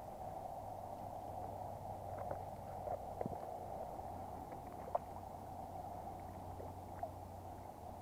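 Steady rush of a small river running over stones, with a few soft clicks and splashes about three and five seconds in as a trout is handled and a landing net is dipped in the water.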